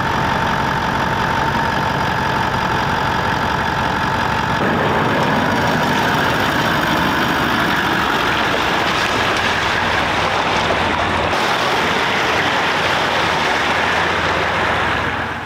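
Four-wheel-drive ute's engine running while driving, a loud steady drone. A steady whine sits in it for the first few seconds, and the sound shifts about five seconds in and again near eleven seconds.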